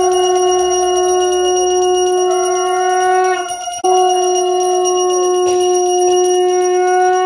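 Conch shell (shankha) blown in two long, steady blasts, the first breaking off about three and a half seconds in and the second following right after and held almost to the end. It is sounded as a ritual call during a Hindu puja.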